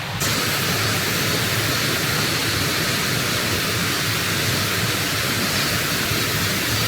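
Valley stream water rushing steadily over rocks, an even hiss with no rhythm; it gets louder just after the start and then holds steady.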